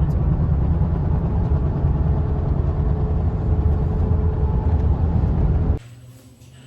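Steady low rumble like a moving vehicle's noise, cutting off suddenly near the end.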